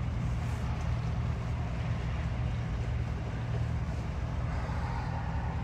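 Pickup truck's engine running with a steady low hum, heard from inside the cab as the truck rolls slowly.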